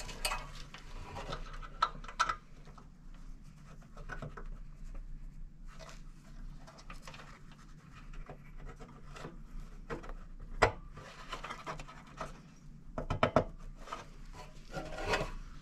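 Gloved hands rubbing and scratching on wires and the sheet-metal housing of a Broan 114 heater, with sharp clicks about ten seconds in and a cluster of them near the end as a short jumper wire's spade connectors are pushed onto the terminals.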